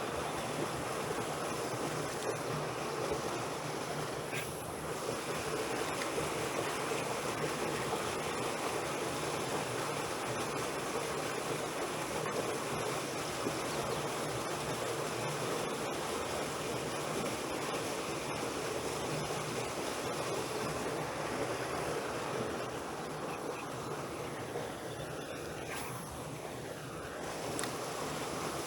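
Steady rushing of flowing water, an even noise that holds unchanged throughout.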